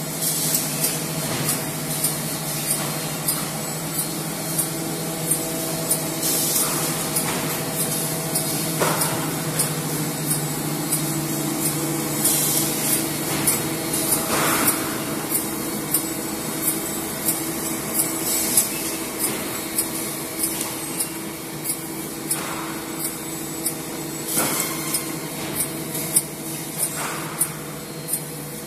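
LJT 4D250HLC paper-core winding machine running: a steady motor hum with regular clicking about once or twice a second, and short hissy bursts every few seconds.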